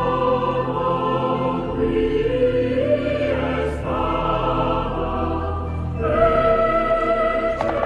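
Background music: sustained choir-like chords, shifting to a new chord about every two seconds.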